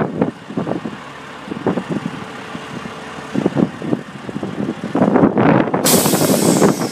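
Steel-frame tandem-axle truss trailer rolling over gravel, its frame and mast rattling and clanking. A sudden loud hiss starts near the end and fades.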